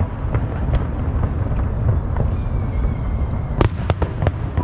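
Fireworks display: a continuous low rumble of bursting shells, with a quick run of sharp cracks about three and a half seconds in.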